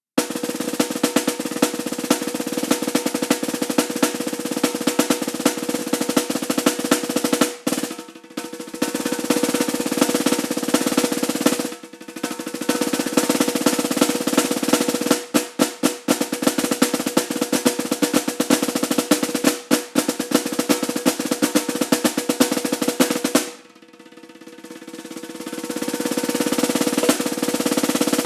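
Solo snare drum played in dense rolls and rapid strokes, broken by a couple of short gaps and clusters of sharp accents; near the end it drops to a soft roll that swells back to full volume.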